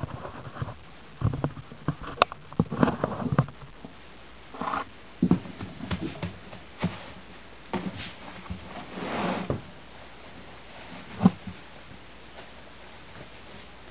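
Hands handling and pressing a lump of moist clay wrapped in canvas: irregular soft thumps and the rustle and rub of the cloth, with one sharper knock about eleven seconds in.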